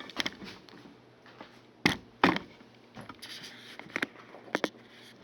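Scattered knocks and clicks of objects being handled and set down on a work surface, with a brief rustle about three seconds in; the two loudest knocks come about two seconds in.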